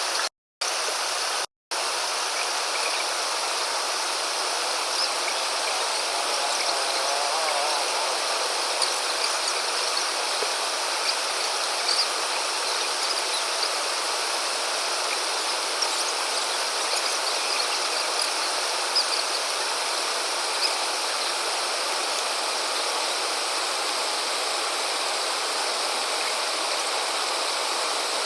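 Steady rush of flowing river water with a chorus of insects over it. The sound cuts out briefly twice in the first two seconds.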